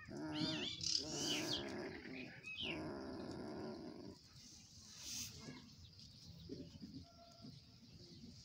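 German Shepherd puppies whimpering and whining: high, wavering cries in the first second, then longer whines until about four seconds in, after which it goes quieter with only faint scattered sounds.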